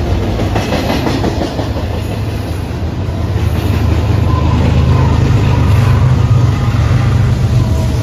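BNSF double-stack container freight train rolling past, its well cars giving a steady low rumble on the rails. The deep drone of a diesel locomotive engine grows louder from about halfway through as the locomotive draws near.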